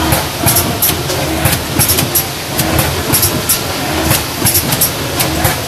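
Auger filler packaging machine running: a steady low mechanical drone with an uneven clatter of sharp metallic clicks, about two or three a second.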